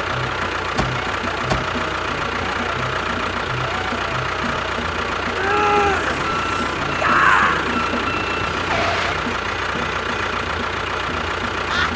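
Small tractor engine sound idling steadily with an even low chug, about two beats a second. A few short swooping tones come in around the middle.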